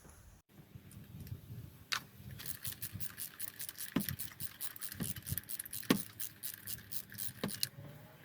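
Ratchet fitted with a 16 mm magnetic spark plug socket clicking in a fast, even run of ticks while an old spark plug is unscrewed from the engine, with a few louder single clicks between.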